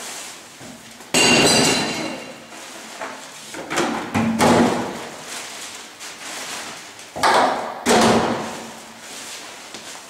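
Waste being dropped into plastic recycling bins: a series of loud clattering thuds, the first about a second in with a short ringing clink, then more around four seconds and two close together around seven to eight seconds.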